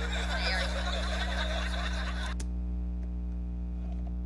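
Sitcom studio audience laughing. The laughter cuts off abruptly a little past halfway, leaving only a steady low electrical hum.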